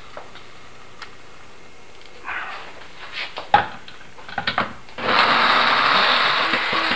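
A few knocks and scrapes of the pan and glass blender jar, then about five seconds in a countertop blender switches on and runs steadily, puréeing thick tomato-and-onion curry sauce.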